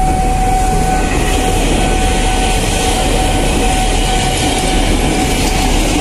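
Ex-Tokyo Metro 6000 series electric commuter train passing close by at speed: a loud, steady rush of wheels on rail with some clickety-clack over the rail joints. A thin steady high tone sounds over it.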